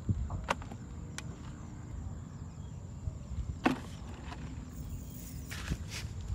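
A low steady rumble with a few sharp clicks and taps scattered through it, the loudest about three and a half seconds in.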